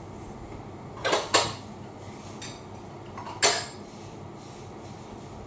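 Kitchen dishes and utensils clinking: two quick knocks about a second in and another about three and a half seconds in, each with a short ring, over a steady background hiss.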